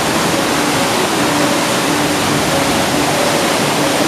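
Fast-flowing muddy forest stream rushing over rocks, a steady loud roar of water.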